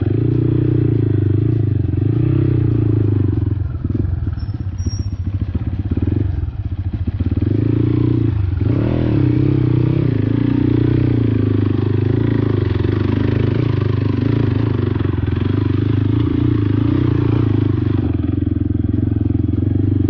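Motorcycle engine running steadily while being ridden on a rough, broken road, its note dipping briefly and picking up again about eight seconds in.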